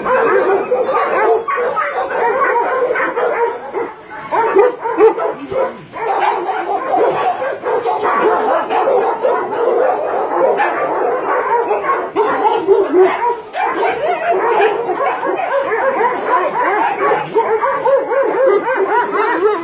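Many dogs barking, yipping and whimpering at once in a continuous, overlapping din.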